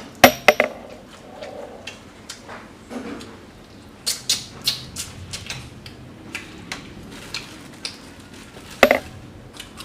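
Eating sounds from a packed rice meal: scattered sharp clicks and crunches, loudest just after the start, with a quick run of them about four seconds in and another near the end.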